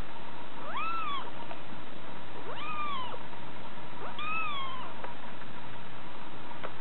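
Kitten mewing three times, each a short high call that rises and then falls in pitch, spaced about a second and a half apart.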